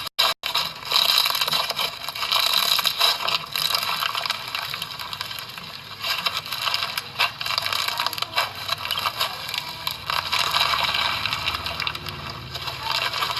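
Slime being squeezed and worked by hand close to the microphone: a dense, steady run of crisp crackles and small pops, with a brief gap just after the start.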